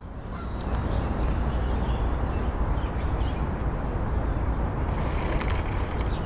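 Steady low outdoor rumble, with a few light clicks about five seconds in from a baitcasting reel being cranked through a slow retrieve.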